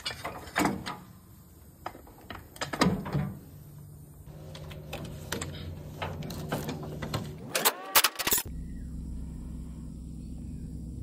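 Metallic clicks and clanks of a wrench working the blade bolt on a Craftsman riding mower, over a steady low hum.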